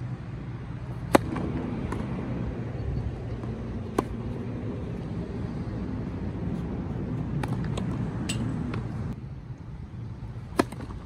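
Sharp pops of a tennis ball being hit or bounced: a loud one about a second in, another at about four seconds, and a serve struck by the racket near the end. A steady low rumble runs underneath.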